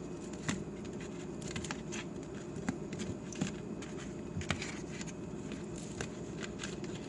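Light, irregular clicks and taps of zucchini strips being turned over by hand on a plate, over a steady low background hum.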